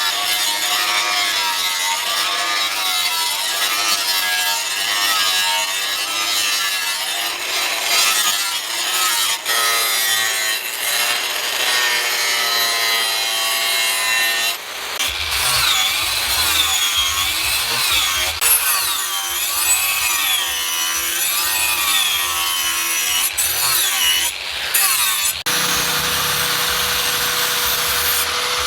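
Hand sawing: rhythmic back-and-forth strokes, about one every 0.7 seconds early on, with a squealing pitch that rises and falls on each stroke. The sound changes abruptly about 15 seconds in and again near 25 seconds.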